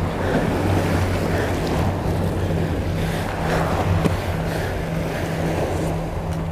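Sea waves washing against shore rocks, with wind on the microphone and a low steady hum underneath.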